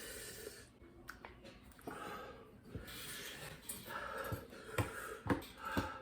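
A person breathing hard and wheezing from the burn of a Carolina Reaper tincture, with several short sharp sounds in the last two seconds.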